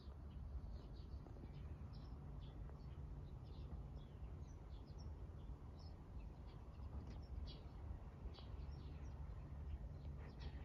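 Small birds chirping in the background, short high chirps scattered irregularly throughout, over a low steady rumble of outdoor ambience.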